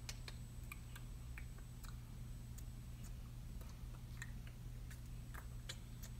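Quiet room tone: a steady low hum and a thin high whine, with faint clicks and taps at irregular intervals from a person's hands and mouth as she signs.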